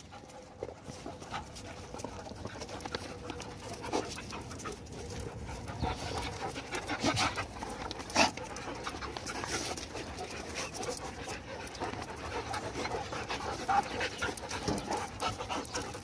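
Several stray dogs panting close by as they crowd around, with scattered short scuffling sounds and a couple of sharper sounds around the middle.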